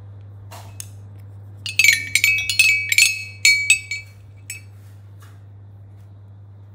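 Rainbow toy xylophone struck with a ball-headed mallet: a quick run of about a dozen bright ringing notes, then one last light tap.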